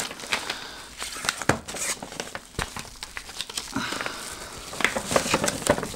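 Paper rustling and crinkling in irregular crackles as a folded paper poster is handled and unfolded.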